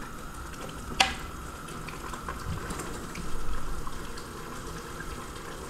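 A wooden spoon stirs mutton and potato curry in an aluminium pressure cooker as the liquid bubbles on the stove. There is one sharp knock about a second in.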